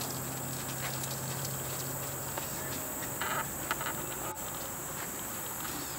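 Steady high-pitched chirring of insects. A low steady hum underneath stops about three seconds in, and a few light knocks follow shortly after.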